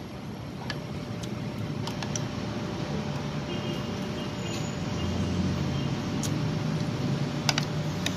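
A fork and spoon clinking lightly against a ceramic soup bowl a few times while lifting noodles, over a steady low background rumble that grows louder about halfway through.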